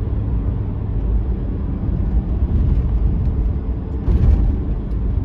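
Honda Civic Type R FN2's naturally aspirated four-cylinder engine running steadily at about 3,200 rpm in fourth gear, below the VTEC changeover, with road and tyre noise heard from inside the cabin. A brief louder rush comes about four seconds in.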